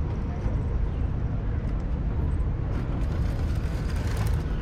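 Steady low mechanical rumble, with a few faint clicks in the second half.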